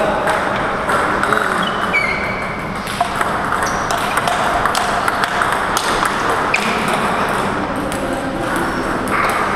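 Celluloid-type table tennis ball clicking sharply off rubber bats and the table during a rally, a string of irregular pocks.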